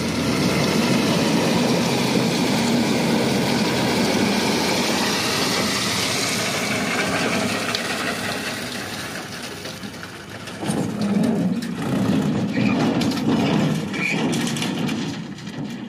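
Mahindra Arjun 555 tractor's diesel engine running steadily. About ten seconds in it grows louder and uneven, in surges, as the tractor pulls its tipping trolley up a gravel slope.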